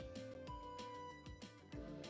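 Soft background music with held notes and a few light plucked notes.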